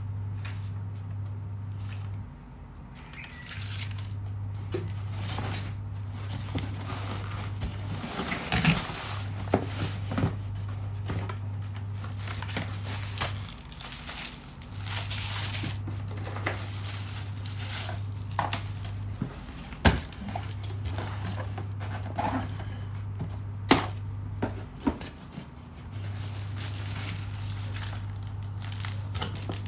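Plastic packaging and cardboard being handled: rustling and crinkling with scattered sharp knocks and clicks. Under it a steady low hum cuts out for about a second every five seconds or so.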